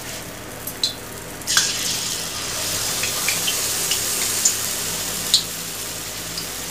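Rice-flour and jaggery pitha batter poured from a ladle into hot oil in an iron kadhai: the oil breaks into a steady sizzle about one and a half seconds in, with a few sharp pops. The oil is hot enough for frying.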